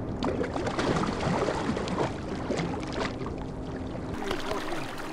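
River water sloshing and splashing irregularly around a wading angler's hands as he releases a salmon. The splashing is busiest through the first four seconds and then thins out.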